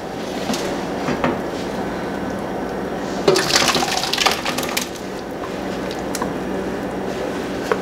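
Thick homemade cream of mushroom soup poured from a skillet into a large stainless steel mixing bowl. About three seconds in comes a second or so of clattering and scraping as the pan's rim meets the bowl, over a steady background hiss.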